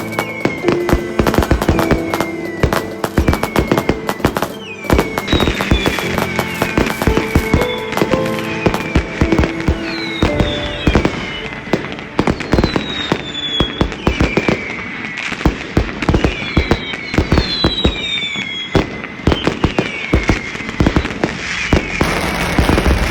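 Dense, rapid bangs of firecrackers and fireworks going off continuously, with music playing alongside.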